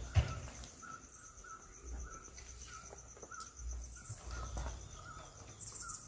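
Insects trilling: a steady, fast-pulsing high-pitched chirr, with a short call repeating two or three times a second and occasional low rumbling.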